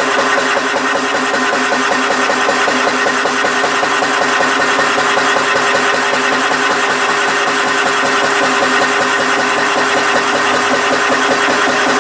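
An engine or motor-driven machine running steadily with a fast, even pulse.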